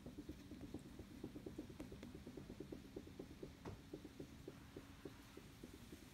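Faint rapid rubbing strokes of a whiteboard being wiped, about six strokes a second, with a low steady hum under the first half.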